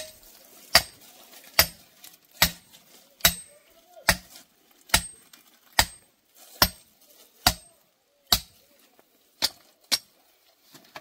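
A hammer striking the top of a metal soil-sampling tube, driving it into the soil to take a core sample. There are about a dozen sharp blows, each with a short clink, a little under one a second; the last two come quicker.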